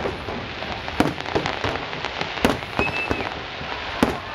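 Aerial fireworks bursting: separate sharp bangs, the loudest about a second in, midway and near the end, over a steady crackle from the sparkling stars.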